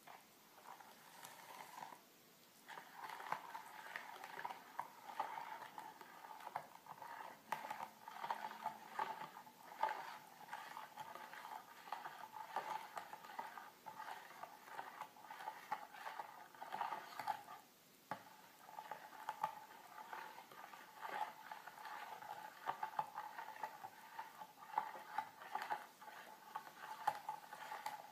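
Metal spoon stirring raspberry jelly mixture in a mixing bowl, with quick small clinks and scrapes against the bowl's sides. The stirring pauses briefly about two seconds in and again a little past the middle.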